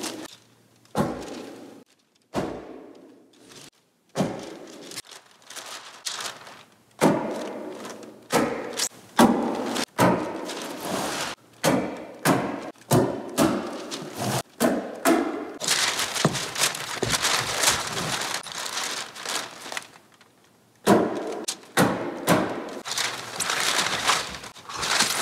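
Irregular knocks and thuds of hand work on a cabin roof, coming in quick runs of several a second with short pauses between. About two-thirds of the way through there are a few seconds of steady hissing noise.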